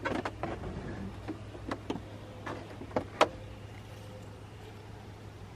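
A series of short knocks and clicks, like things being handled and set down, the sharpest a little past three seconds in, over a steady low hum; after that only the hum.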